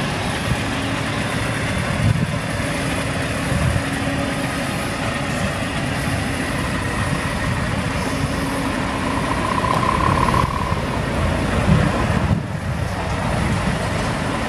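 Scania R580's 16-litre V8 diesel idling steadily through its upright exhaust stack. A short higher tone sounds briefly about ten seconds in.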